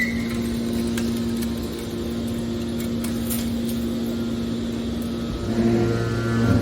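Hydraulic steel-wire scrap baler running with a steady machine hum from its power unit. About five seconds in, a lower tone joins and the machine grows louder.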